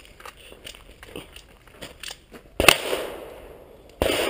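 Two gunshots from a competitor firing on a 3-gun stage at some distance, a little over a second apart. The first comes about two and a half seconds in and the second near the end, each followed by a short echo.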